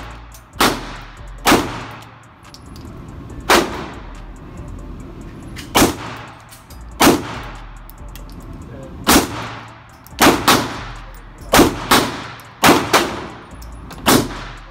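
Semi-automatic pistol firing about thirteen shots, a second or two apart at first, then in quicker pairs later on. Each shot has a short ringing echo off the indoor range's walls.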